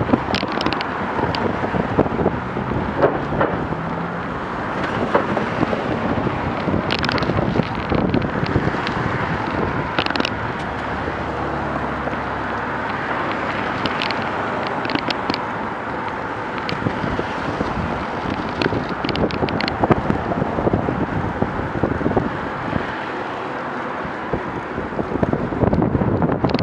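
Wind rushing over a moving camera's microphone, mixed with the steady noise of car traffic on a busy road. A few sharp clicks and crackles break through now and then.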